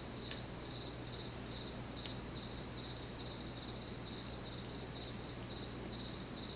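A cricket chirping steadily in a quick, even rhythm, a few chirps a second, over a faint low hum. Two sharp clicks stand out, one near the start and one about two seconds in.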